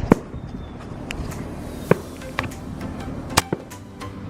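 A few sharp, separate clicks and knocks, the loudest near the start and about three and a half seconds in, over a low steady hum.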